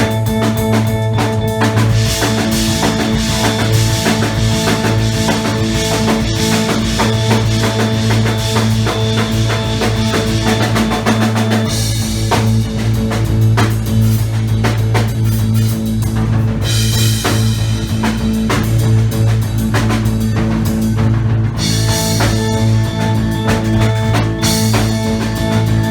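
Live band music in a free-form krautrock vein: a drum kit played busily and heavily over a steady low droning tone.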